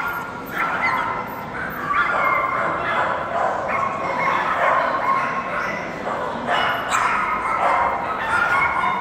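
Many dogs barking and yipping at once in a large exhibition hall at a dog show, overlapping with no break.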